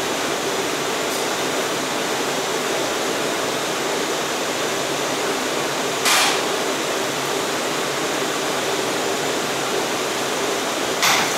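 Steady running noise of a Bombardier R179 subway car, heard from inside the car. Two brief sharp noises rise above it, one about halfway through and one near the end.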